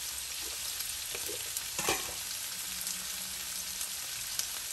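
Shrimp, onion and green chillies sizzling in oil in a frying pan, a steady hiss, with one light knock about two seconds in.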